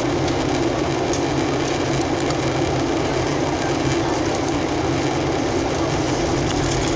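Steady cabin noise inside a Boeing 737-800 in flight: a constant low drone from its engines mixed with the hiss of air rushing past the fuselage, unchanging throughout.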